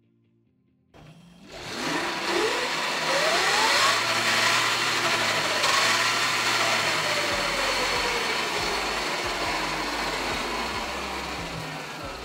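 Sur-ron electric dirt bike's motor and chain drive spinning the raised rear wheel, a test that the bike runs on the bypassed stock 60 V battery. It starts about a second in with a motor whine that rises in pitch for a couple of seconds, then slowly falls as the wheel winds down, over a steady whirring of drive noise.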